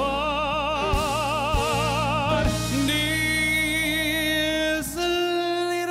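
Operatic tenor voice holding long, sustained notes with a wide vibrato over band accompaniment, one note for about two and a half seconds, then another; the low accompaniment drops away near the end.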